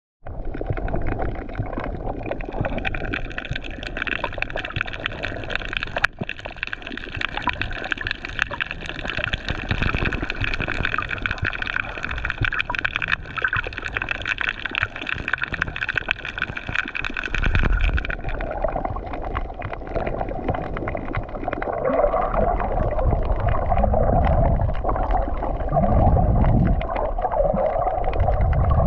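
Underwater sound picked up by a GoPro in its housing: a continuous muffled rush of water with gurgling. For about the first two-thirds a steady high hum of several tones sits over it. The hum then stops, and the sound turns lower and louder with slow surging swells.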